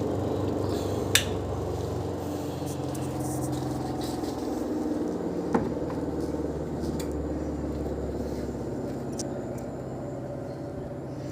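Spin-tub motor of a twin-tub washing machine running with a steady hum, its freed brake no longer holding the spinner; the hum gets a little quieter over the last few seconds. Two sharp clicks, about a second in and about five and a half seconds in.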